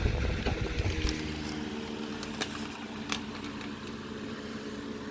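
Hunter 12-inch retro table fan running on its high speed: steady motor hum with rushing air. A heavy low rumble of air on the microphone eases about a second in, and a few light ticks sound over the hum.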